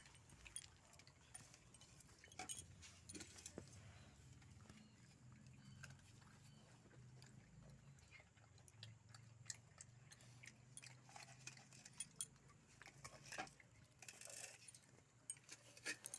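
Near silence: faint scattered clicks and taps over a low, steady hum.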